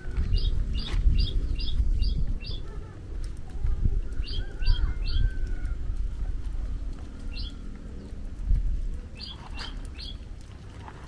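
A small bird chirping in short runs of quick, repeated high chirps: a run of about six, then runs of three, a single chirp, and three more near the end. Under it runs an uneven low rumble.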